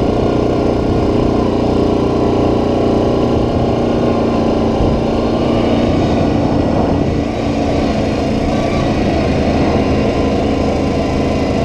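Yamaha Kodiak 700 ATV's single-cylinder engine running steadily under light throttle while cruising a dirt trail, easing off briefly about seven seconds in.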